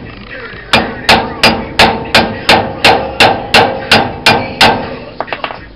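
Hammer blows on the steel axle shaft flange of a Dana 60 rear axle: about a dozen evenly paced metal-on-metal strikes, roughly three a second, knocking loose the small retainers that hold the axle shaft on its studs. The strikes stop about three quarters of the way through, followed by a few lighter clicks.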